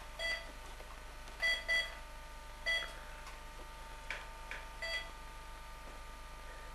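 Mobile phone keypad beeping as a number is dialled: about five short beeps at uneven spacing, with a couple of key clicks about four seconds in.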